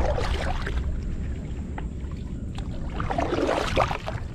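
Kayak paddle strokes: the blade dips and pulls through the water with splashing near the start and again about three seconds in, over a low steady rumble.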